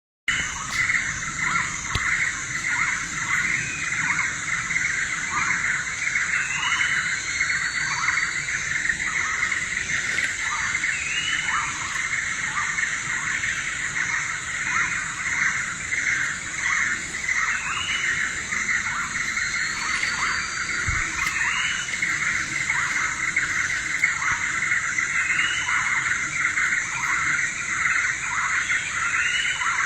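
A dense, steady chorus of many birds calling at once: a continuous chatter of short, repeated down-slurred calls, with an occasional separate rising chirp. A steady high insect drone runs underneath.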